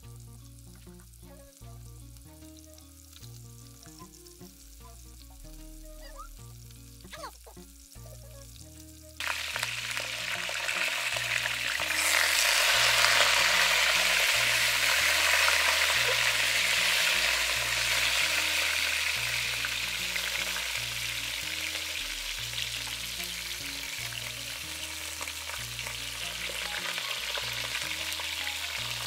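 Whole peeled Irish potatoes frying in a pot over a wood fire. A steady sizzle starts suddenly about nine seconds in and grows louder a few seconds later, while a wooden spoon stirs them. Soft background music plays underneath.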